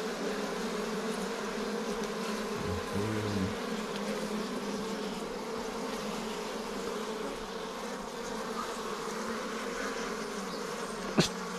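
A swarm of honeybees buzzes steadily around a hive that is opened for a honey harvest. A single sharp knock comes near the end.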